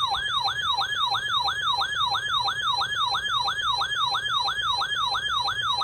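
Emergency alert attention tone: a loud, siren-like electronic tone that sweeps sharply down in pitch and repeats about three times a second, heralding a severe thunderstorm warning.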